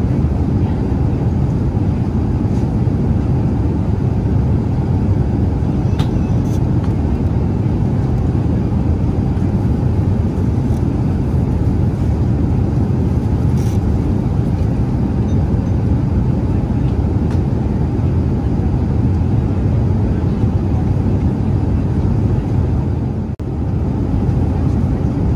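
Steady cabin noise of an Airbus A380-800 in flight: a constant low rush of engines and airflow, with a few faint clicks and a brief dip near the end.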